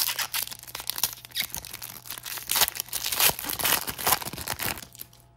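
Foil trading-card pack wrapper being torn open and crinkled by hand: a dense crackling rustle that stops about five seconds in.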